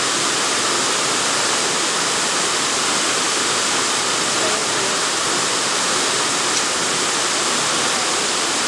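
A steady, even rushing noise like running water, unchanging throughout.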